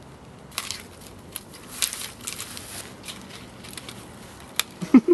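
Irregular crackling and rustling of clothing and scuffling from two people grappling in a staged struggle, with a sharp click near the end and a brief low vocal sound right at the end.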